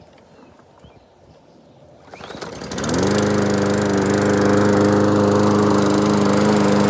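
Lawn mower engine starting about two seconds in, rising quickly in speed and then running steadily at a constant pitch.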